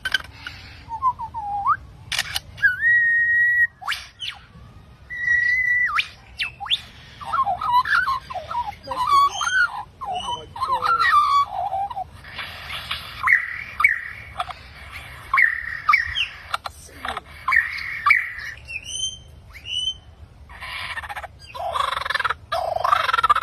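A bird singing a varied string of whistles, warbles and chattering calls, with some clear whistled notes held steady for about a second.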